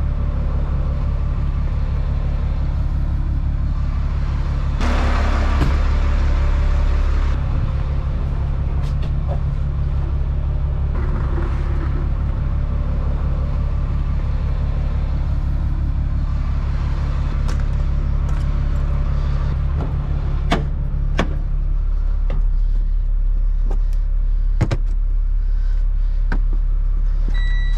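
Diesel truck engine idling steadily, with a louder stretch of hissing noise about five seconds in and a few sharp clicks later on.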